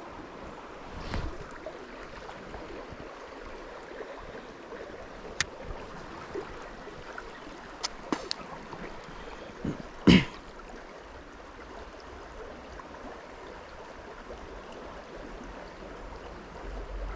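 Mountain stream water running steadily, with a few short sharp clicks and knocks scattered through it, the loudest about ten seconds in.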